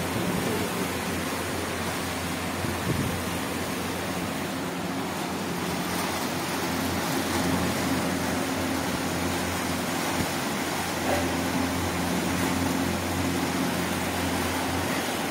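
Air cooler's 18-inch exhaust fan running steadily: an electric motor's low hum under a constant rush of air.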